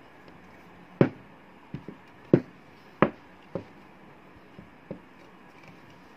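Heavy-based phone holder stand being handled on a wooden table: the base set down and its hinged metal arm moved, giving a series of sharp knocks, the three loudest about a second apart, then a few lighter taps.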